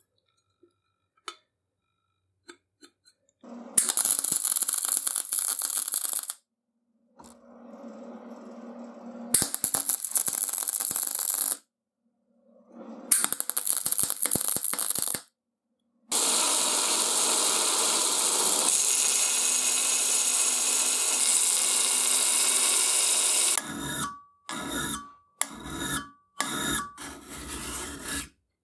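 MIG welder laying short weld runs on steel, a sputtering crackle in several separate bursts that start and stop sharply. Near the end it gives way to a hand file rasping across steel in strokes about twice a second.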